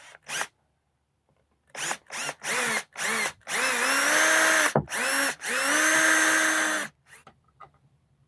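Power drill motor running. It gives a few short trigger bursts, then two longer runs of a second or more, each one whining up in pitch as it starts.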